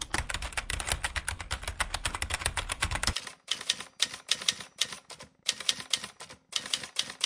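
Typing sound effect: rapid keystroke clicks, a dense unbroken run for about the first three seconds, then several short bursts of typing with brief pauses between them.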